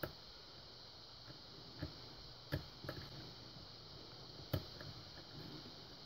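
Faint, scattered metallic clicks and ticks from a hook pick working the pin stack of an Abus Buffo euro cylinder held under tension, about five clear clicks among fainter ticks. The pins are being lifted one by one and one ends up overset, lifted past the shear line.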